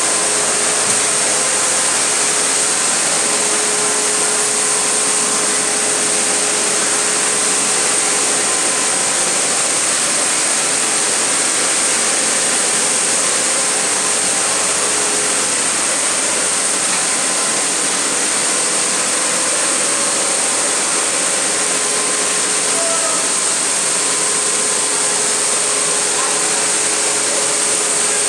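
Steady, unbroken whirring of machinery running, with a strong high hiss over it.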